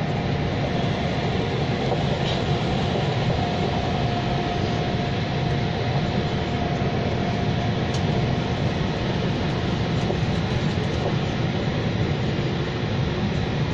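SMRT C651 metro train running along the line with a continuous rumble of wheels on rail. A faint steady whine is heard through the first half.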